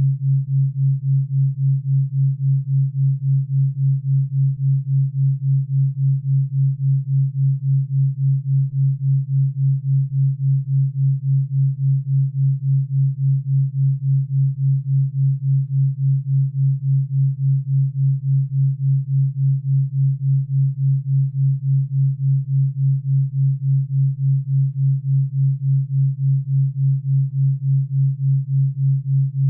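A steady low electronic sine tone, pulsing evenly several times a second: a theta brainwave-entrainment tone.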